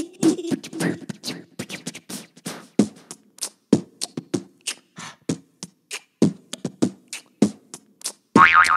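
Child beatboxing: a quick rhythm of mouth pops and clicks, about three or four a second, with a short voiced sound near the end.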